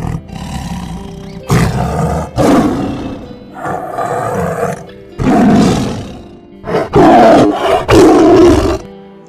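An animal roaring in a rapid series of about eight loud, rough calls, each lasting up to a second, over soft background music.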